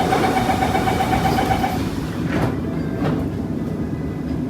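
Door-closing warning on a Bombardier Movia C951A metro train: a fast pulsing beep that stops about two seconds in. The doors then shut with two short sounds, over the steady hum of the train.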